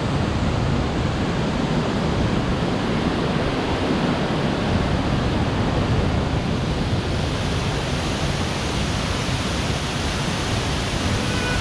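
Minoo Falls: a waterfall pouring steadily, a dense, even rush of falling water.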